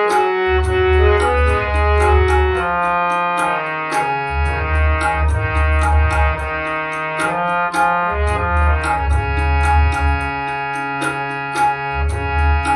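Instrumental interlude of a Hindu devotional song (bhajan): a keyboard melody over sustained organ-like chords and bass, with a light percussion tick keeping a steady beat of about four a second.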